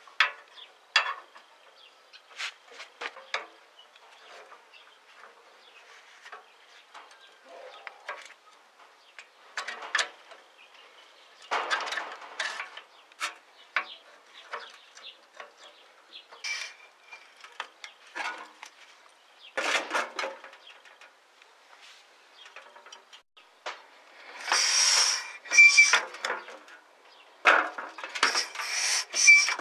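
Parts of a steel-framed car foot pump being handled and fitted together by gloved hands: scattered light metal clicks and knocks. Near the end come louder, rasping bursts with a faint squeak.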